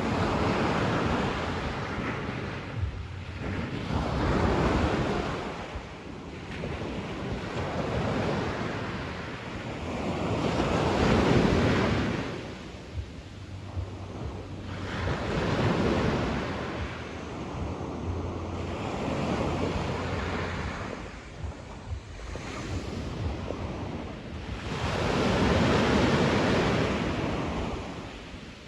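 Sea waves breaking and washing up on the shore, one surge every three to four seconds, the larger ones about eleven seconds in and near the end.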